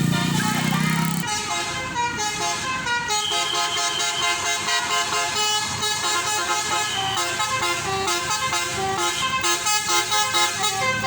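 A tour bus's Basuri telolet musical horn playing a quick tune of stepped notes, after a loud low drone in about the first second.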